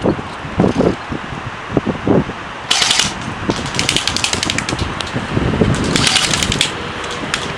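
Two bursts of automatic airsoft gunfire, each a rapid clatter lasting about a second, about three seconds in and again about six seconds in. Low thumps come before them in the first two seconds.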